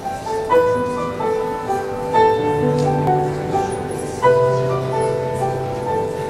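Instrumental introduction to a gospel worship ballad: keyboard chords over sustained bass notes, with new chords struck about every two seconds.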